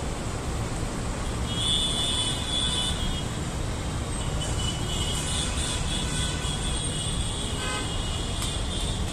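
Steady low rumble of road traffic from the surrounding city, with thin high-pitched tones that come in about a second and a half in, break off, and return about halfway through.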